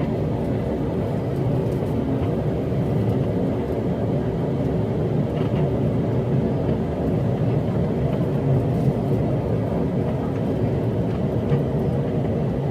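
Airliner cabin noise during takeoff: a steady low rumble of the jet engines and airflow, heard from inside the cabin.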